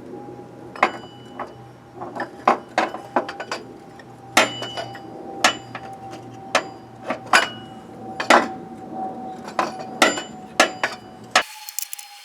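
Irregular metallic clinks and knocks, about one or two a second, as a replacement belt auto-tensioner and hand tools are worked into place against the engine.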